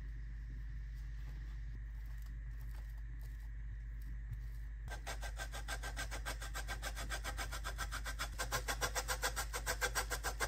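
Parmesan block rubbed on a stainless box grater: fast, even rasping strokes, several a second, that start about halfway through and grow louder toward the end. Before that, soft scraping of a silicone spatula spreading paste on bread.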